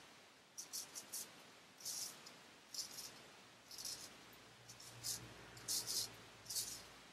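Rosette Japanese straight razor scraping through beard stubble in short, quick strokes, a dozen or so rasps, often in pairs.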